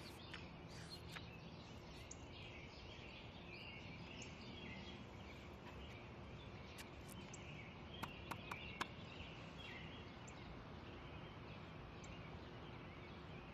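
Faint birds chirping in the background of a quiet outdoor ambience, with a few light clicks about eight seconds in.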